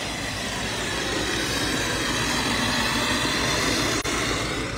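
Ground fountain firework (gerb) spraying sparks with a loud, steady hiss, which stops near the end.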